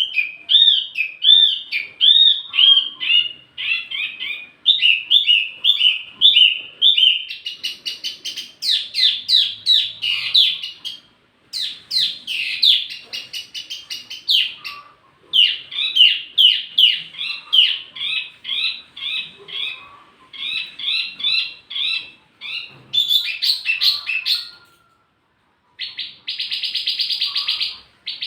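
A wambi mini bird singing: fast runs of high, curved chirping notes, phrase after phrase, with a brief pause about 25 seconds in, then a dense buzzy trill near the end.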